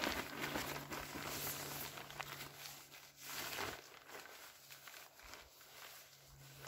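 Rustling and crinkling of a 70D nylon poncho as it is pulled down over the head and settles around the body, with a louder swish of fabric about halfway through.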